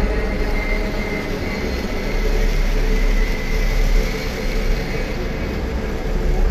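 A loud, steady low rumble with faint held tones above it.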